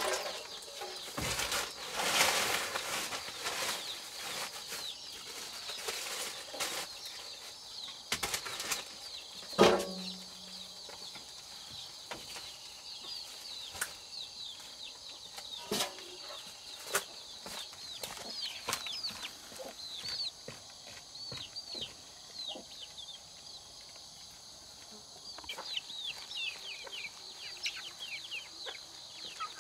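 A few sharp knocks in the first ten seconds, then many short, high chirping calls from birds, some falling in pitch, growing busier toward the end.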